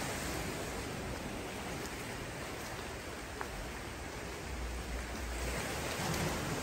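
Steady, even rushing noise of outdoor ambience with no distinct events; a low rumble swells briefly about five seconds in.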